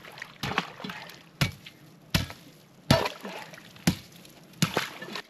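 Chopping through creek ice with a hand tool: six sharp strikes at an even pace, with faint water trickling and sloshing as the hole opens.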